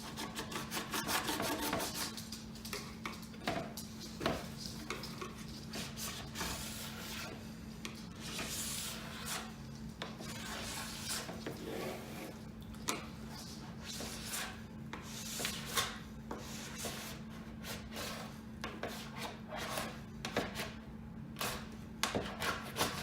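Wax scraper dragged across a snowboard base in repeated, irregular strokes, scratching off hard wax that was ironed on and has dried.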